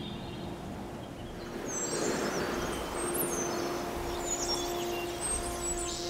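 Forest ambience: birds chirping over a steady rushing background, with a low steady tone coming in about three seconds in.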